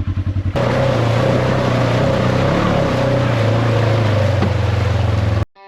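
Side-by-side UTV engine running steadily under load, under a loud, even rushing noise. The sound cuts off suddenly near the end.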